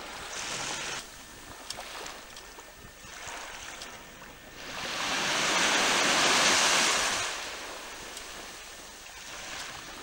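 Wind and water noise, a steady rushing hiss that swells into a loud surge about five seconds in and dies away over the next two seconds.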